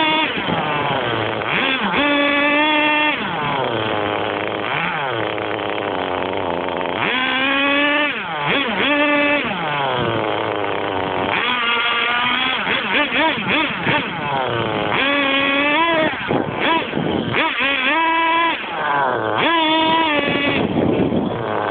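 Small two-stroke nitro engine of an RC car, heard up close from a camera mounted on the car, repeatedly revving up and falling back as the car accelerates and slows.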